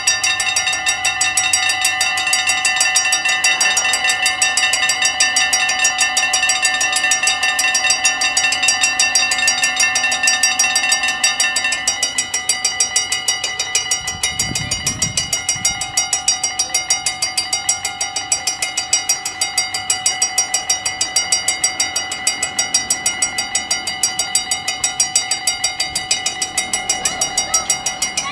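Level-crossing warning bells, several mechanical bells ringing together with rapid strikes, warning of an approaching train. About twelve seconds in, part of the ringing stops and fewer bells carry on.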